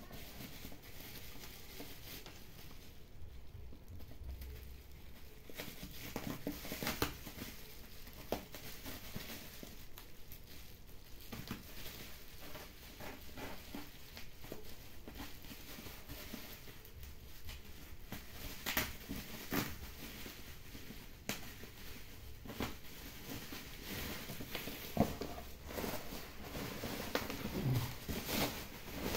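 Plastic bubble wrap rustling and crinkling as hands handle it and pull it off a cardboard box. The crackles are irregular, with a few sharper, louder rustles scattered through.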